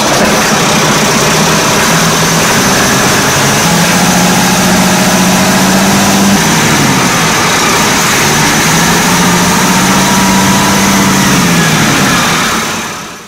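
Tractor engine running steadily, its pitch easing down and back up a couple of times, then fading out near the end.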